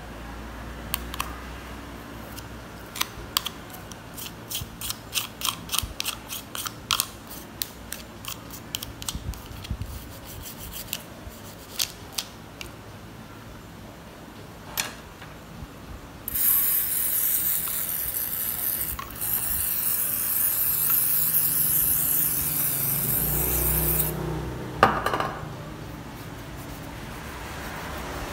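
Toothbrush bristles scrubbing the plastic housing of a Nokia 1280 phone in quick rasping strokes, several a second, over the first ten seconds or so. About halfway through, a loud steady hiss lasts about eight seconds, broken briefly once. Near the end comes a sharp knock, then a tissue rubbing over the case.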